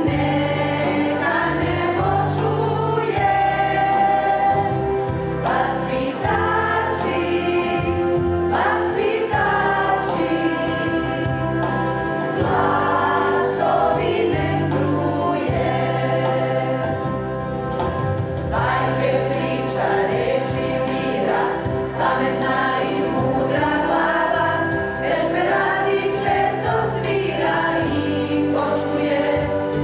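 Mixed choir of preschool teachers, mostly women, singing a hymn together in sustained, steady phrases.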